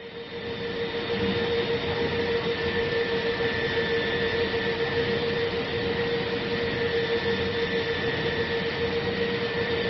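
Gondola lift cable car running: a steady whirring hum with a high whine held at one pitch, fading in over about the first second.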